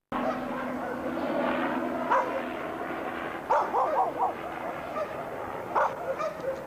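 A dog barking: once about two seconds in, then four quick barks in a row, then once more near the end. Underneath runs the steady drone of a helicopter flying low overhead.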